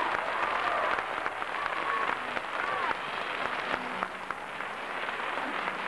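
Audience applauding, dense steady clapping with a few voices calling out over it.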